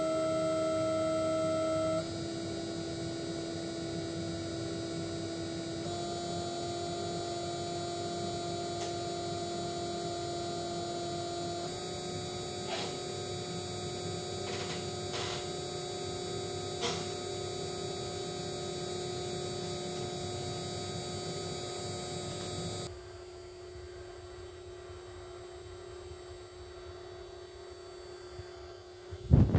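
Siemens 1FT6 servo motor running on a test bench after repair: a steady electric whine of several tones that steps up in pitch a few times as its speed is raised. About two-thirds of the way through it becomes quieter but keeps running. A short knock comes near the end.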